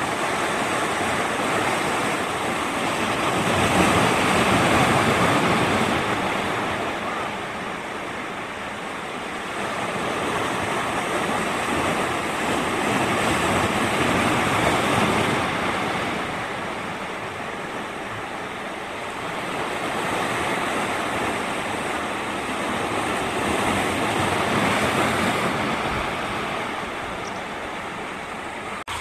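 Ocean surf: waves rushing in and washing back. The noise swells and ebbs every several seconds.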